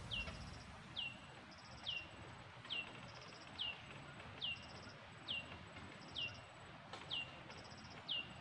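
A bird repeating a short high note that slides downward, about ten times, a little under once a second. A quieter, higher rapid trill comes in between the calls every second or so, over a faint steady high insect whine.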